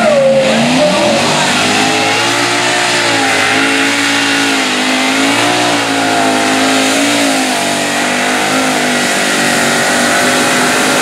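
Super modified pulling tractor's multiple supercharged engines at full throttle under load. The engine note climbs over the first couple of seconds, then holds high and steady with a slight waver as the tractor pulls the sled down the track.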